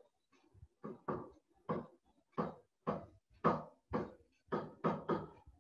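Stylus writing on a digital writing surface: a run of short taps and scrapes, about two a second, as the pen forms letters and symbols.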